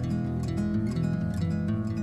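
Background music led by quickly repeated plucked-string notes over held low tones.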